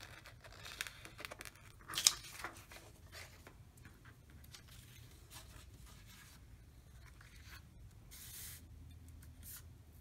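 Glossy magazine paper being cut out and handled: scattered papery strokes and rustles, with a sharp, louder one about two seconds in and a short hissing rush of paper near the end.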